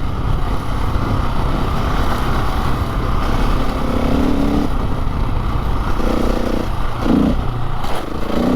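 Dirt bike engine under way on a gravel road, the throttle opening and closing, with a steady rushing noise underneath. The engine note comes and goes in short held stretches, with a quick rise in pitch about seven seconds in.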